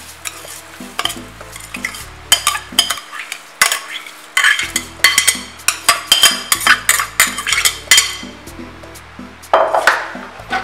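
Metal spoon clinking and scraping against an aluminium caldero as washed rice is poured into simmering tomato broth and spread out, a run of quick irregular knocks most dense in the middle.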